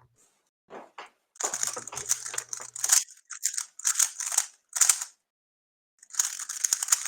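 3x3 speedcube being turned fast: runs of rapid plastic clicking that come in bursts, with a pause of about a second before a last run near the end.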